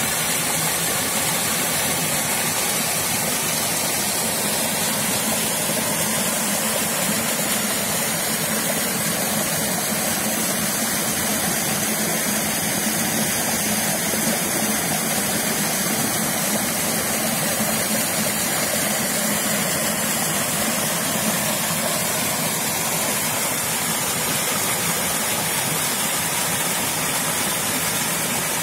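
Small mountain waterfall and stream rushing steadily over rocks and splashing into a pool.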